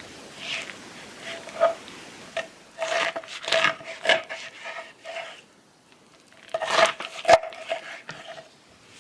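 A utensil stirring, scraping and knocking in a bowl, with the bowl ringing at each knock. There are two spells of stirring with a short pause about halfway through.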